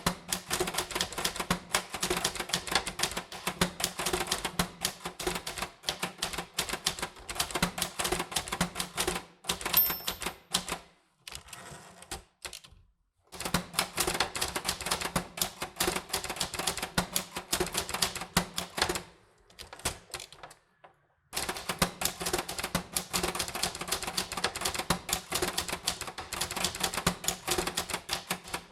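Typewriter keys striking paper in quick, uneven runs of clicks. The typing breaks off for a second or two about a third of the way in, and again about two-thirds of the way in.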